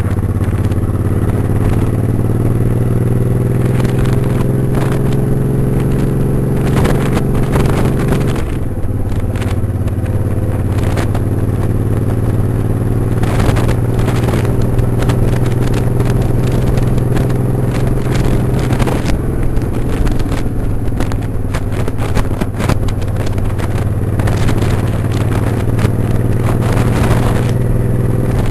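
Motorcycle engine running while under way, its pitch climbing slowly for about eight seconds, then dropping and holding steady, with repeated rushes of wind noise over it.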